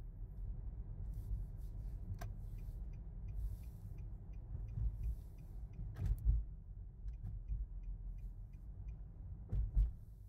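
Car driving, heard from inside the cabin: a steady low road and engine rumble, with a few sharp knocks along the way.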